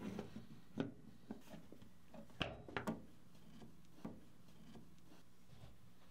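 A few light clicks and knocks as a trolling motor control board is handled and set into its metal housing and its wires are moved, the loudest about two and a half to three seconds in, over a faint steady hum.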